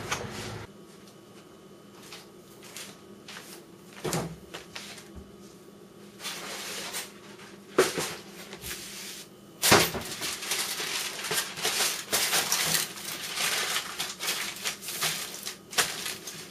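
Household handling noises with scattered knocks and two sharp loud clicks, then, from about ten seconds in, heavy-duty aluminium foil crinkling and rustling as it is wrapped around a milk container.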